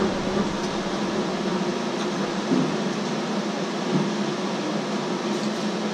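Steady whir of the cooling fans in a running network rack and rack-mounted PC, with a low hum, and a couple of faint knocks as cables are handled.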